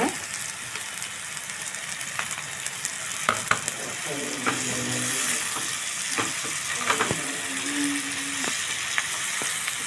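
Chopped tomatoes and broad beans sizzling in hot oil in a nonstick pan, a steady frying hiss, with scattered light taps and scrapes of a spatula against the pan as they are stirred.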